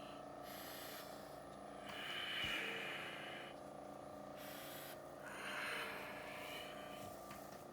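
A child's laboured, rasping breaths, two long harsh intakes about three seconds apart: stridor, the noisy breathing of a narrowed upper airway, here with oxygen saturation down to about 86%.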